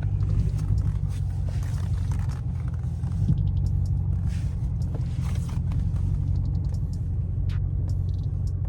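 Chrysler 300S's 5.7 Hemi V8 running steadily with a low rumble, with a few light clicks over it.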